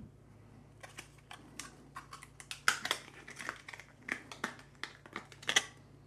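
Scattered light plastic clicks and faint crinkling as a RAM module is taken out of its packaging and handled, about fifteen irregular ticks.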